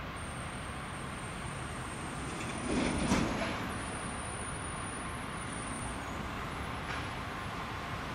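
Diesel locomotive hauling a freight train of container wagons as it approaches: a steady rumble of engine and rolling stock, with a brief louder swell about three seconds in.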